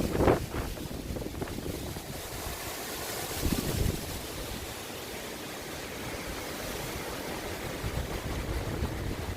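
Hurricane wind blowing in a steady rushing roar, with harder gusts buffeting the microphone just after the start and again about three and a half seconds in.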